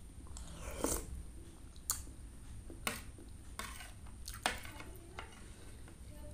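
Close-up eating of kolak: chewing of soft banana and fruit in coconut milk, with a metal spoon clicking against a ceramic plate several times as it scoops.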